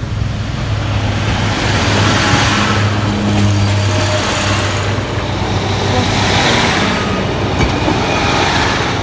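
Diesel passenger train pulling out of the station across the level crossing: a steady low engine hum under the rushing noise of the wheels and the train's passage, swelling a couple of seconds in and easing near the end.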